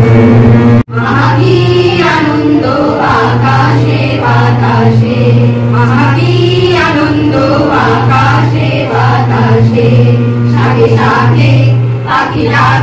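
A group of women and girls singing a song together to harmonium accompaniment, the harmonium holding a steady drone under the voices. The sound cuts out for a moment about a second in.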